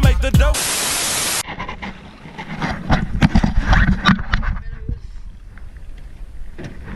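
Hip-hop music cuts off into about a second of loud, even static, which stops abruptly. Then wind buffets the microphone on a canoe, with irregular knocks and taps, most of them a few seconds in, as paddles and gear bump an aluminium canoe hull.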